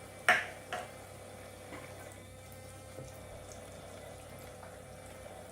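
Toy kitchen sink's pumped faucet running a thin stream of water, with a faint steady hum from its small recirculating pump. Plastic toy dishes knock sharply twice in the first second, with a few lighter clicks later.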